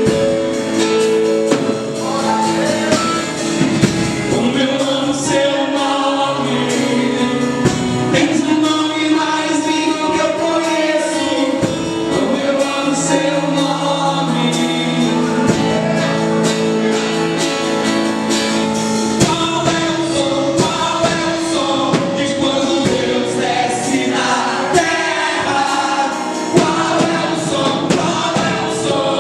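Christian worship song with singing over a steady instrumental accompaniment of held notes.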